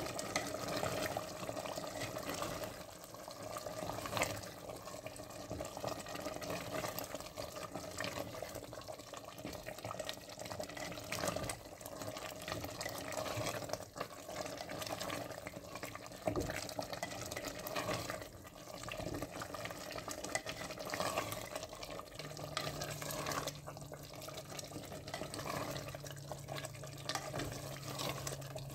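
Chicken curry being stirred with a spatula in a clay pot: continuous wet, sloshing stirring sounds, with occasional knocks of the spatula against the pot.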